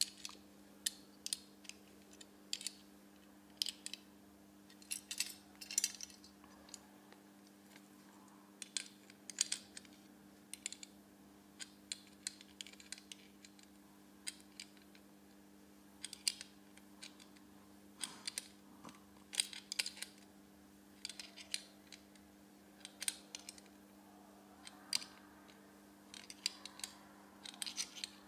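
Hand tool turning metal screws in a monitor arm's metal bracket: irregular sharp clinks, often in quick clusters, over a steady low hum.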